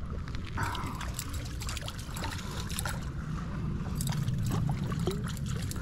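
A hooked perch splashing at the surface as it is drawn in to the bank, with light trickling water and scattered small clicks.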